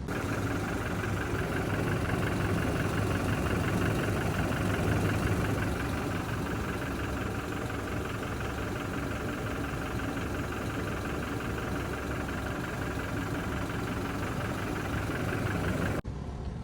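Toyota Hilux engine idling steadily with a little noise that the owner puts down to the timing chain, which has failed for the third time. The sound cuts off abruptly shortly before the end.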